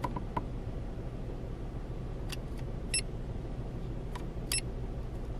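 Car engine idling steadily, heard from inside the cabin as a low hum, with a few faint light clicks and several very short high beeps scattered through it.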